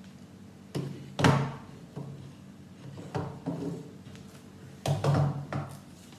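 Plastic Lego pieces being handled and pressed onto the model: a series of irregular clicks and knocks with some duller thuds. The loudest comes just over a second in, with another cluster around five seconds in.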